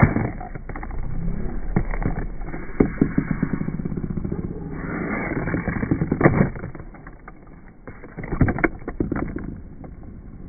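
Tony Hawk Box Boarders toy fingerboard rolling across a tabletop and a bent cardboard ramp, its small plastic wheels rumbling, with sharp clacks as the board hits and lands, loudest about three seconds and six seconds in.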